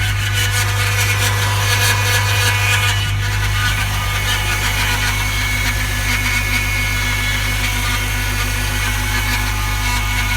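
Acura RSX engine running with a steady strange noise, a low hum under a rough, high-pitched mechanical sound, that remains with the serpentine belt removed; a mechanic put it down to the timing belt.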